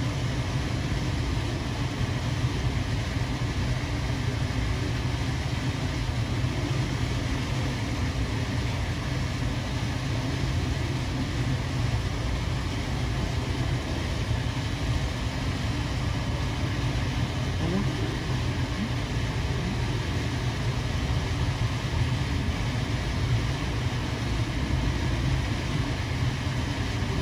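A steady low rumble with a hiss above it, with no distinct events.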